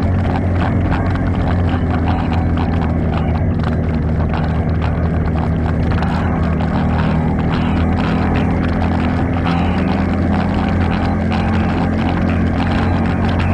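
ATV engine running at a steady pitch under a fairly constant throttle, with frequent short clicks and knocks over it.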